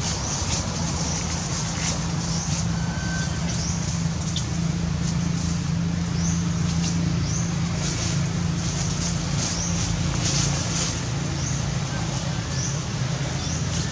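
A steady, low, engine-like hum, with short high chirps coming about once a second.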